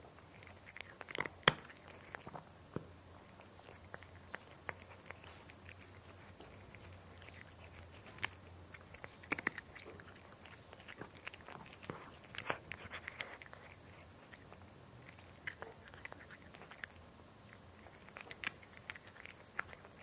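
A cat chewing crunchy dry food: irregular sharp crunches and clicks, bunched into spells of chewing with short quieter gaps between them.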